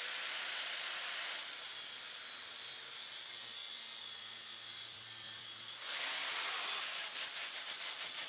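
Angle grinder with a flap disc grinding steel on the disc's face: a steady high hiss with a thin whine, turning uneven and pulsing about six seconds in.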